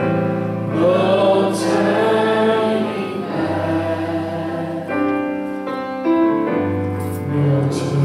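A slow gospel invitation hymn: singing over an electric keyboard, with long held notes and chords changing every second or two.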